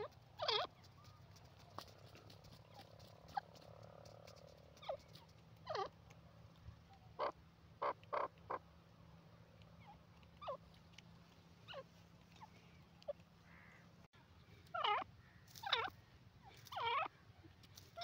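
Grey francolin giving short call notes at irregular intervals, about a dozen, with a few longer wavering calls near the end.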